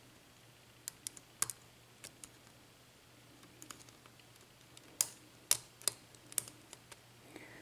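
Lock pick working the pin stack of a Schlage mortise cylinder: scattered light, sharp metal clicks at irregular intervals, a few close pairs, as the pins are probed during single-pin picking.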